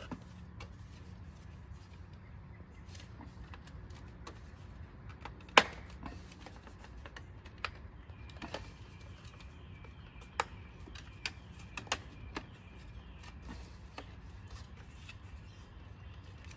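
Plastic clips of a BMW X5 kidney grille snapping into place as the back piece is pressed onto the grille: sharp single clicks, the loudest about five and a half seconds in, then a few more between about eight and twelve seconds.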